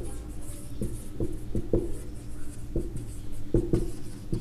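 Marker pen writing on a whiteboard: a string of irregular short taps and strokes as the tip forms letters.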